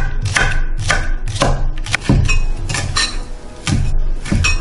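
Chef's knife chopping green onion and then wild chives (dallae) on an end-grain wooden cutting board, a knock of the blade on the board about every half second.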